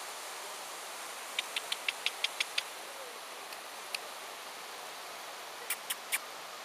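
Steady wash of surf and wind on a beach, with a quick run of about eight sharp clicks a little over a second in and a few more near the end.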